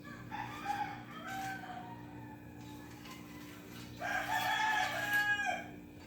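A rooster crowing twice, each crow lasting about a second and a half, the second one louder. A steady low hum runs underneath.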